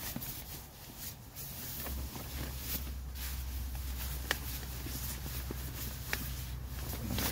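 Rustling and small clicks of tent and sleeping-bag fabric as a person shifts while lying inside a small tent, over a low steady rumble that starts about two seconds in and fades near the end.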